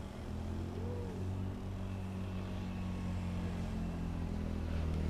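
Propeller airliner's engines running with a steady drone, slowly growing louder as they power up for the takeoff run.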